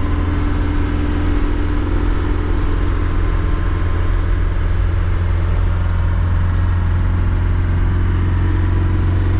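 1962 Mercedes L319D van's diesel engine running steadily on the road, a constant low drone with road noise and no change in pace.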